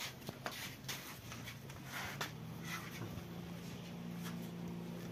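Soft scuffs and clicks of Edilbay sheep shuffling their hooves and jostling on a concrete floor, over a low steady hum. No bleating.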